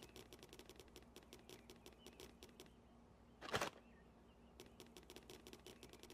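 Faint, rapid, irregular clicking over a low steady hum, with one short burst of noise about three and a half seconds in.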